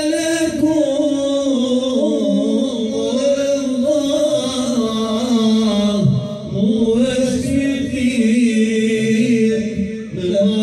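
A man singing an Islamic devotional song (ilahi) solo into a microphone, holding long ornamented notes, with short breaths about six and ten seconds in.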